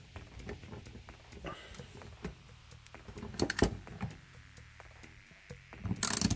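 Scattered clicks and knocks of a ratchet and socket turning the bolt-end top of a Klutch screwdriver as it drives a screw into wood. There is a louder cluster of clicks about three and a half seconds in, and a short harsh burst of noise near the end.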